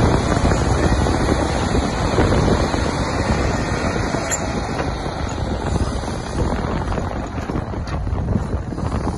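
Diesel engine of a Hidromek wheel loader running under load while it works the snow, a steady dense rumble mixed with wind buffeting the microphone; it grows a little quieter in the second half.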